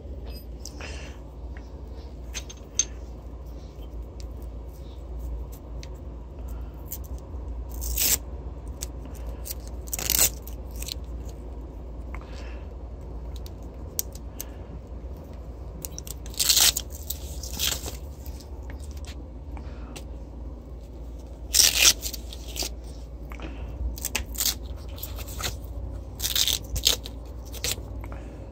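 Hands-on work noises: short scrapes, crunches and tearing sounds every few seconds, over a steady low hum.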